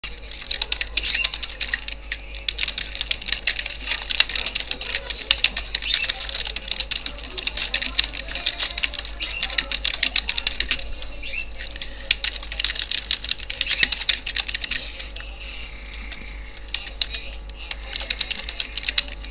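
Typing on a computer keyboard: a fast, continuous run of key clicks that thins out in the last few seconds.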